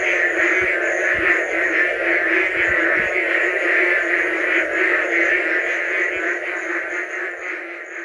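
A dense chorus of rainforest frogs calling together, with a high call pulsing a few times a second over a steady lower drone. The chorus fades out near the end.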